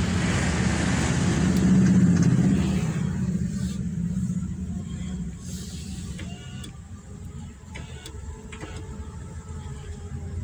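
Car running along a road, heard from inside the cabin: a steady low engine hum under rushing road and wind noise. The rushing fades away about three to four seconds in, leaving the quieter hum and a few light knocks.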